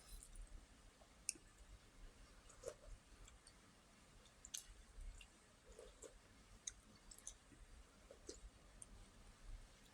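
Faint, irregular small wet clicks of someone chewing food with their mouth close to the microphone.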